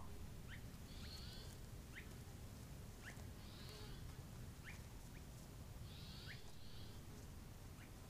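Faint night-time outdoor ambience on a trail camera's microphone: short, faint rising chirps about every second and a half, three soft hissy buzzes, and a low steady rumble underneath.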